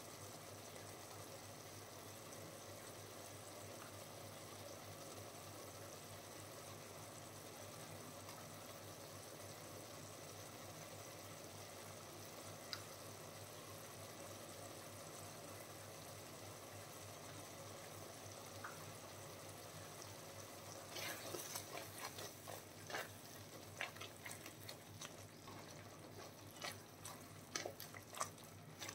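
Liquid bubbling in a cooking pot: a faint steady hiss, then irregular pops and crackles starting about twenty seconds in.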